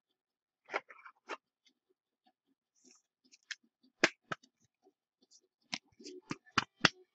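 A trading card being slid into a soft plastic sleeve and a rigid plastic top loader: scattered sharp clicks and taps with light rustling. The loudest tap comes about four seconds in, and a quick run of clicks follows near the end.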